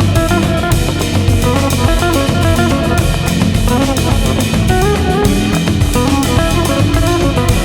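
Background music: an upbeat instrumental with drum kit and guitar keeping a steady beat.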